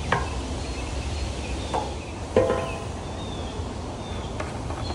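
A few short clunks and knocks, the loudest about two and a half seconds in, over a steady low background rumble.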